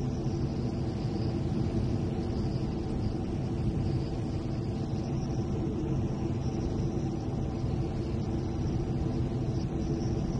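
Aermacchi MB-339 jet trainer in flight, heard from inside the cockpit: the turbojet and rushing air make a steady low drone with a thin high whine over it.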